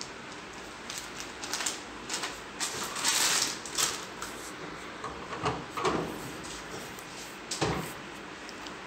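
A foil packet of instant tea premix rustling and crinkling as it is handled, with a few sharp clicks and knocks of plastic parts in the second half.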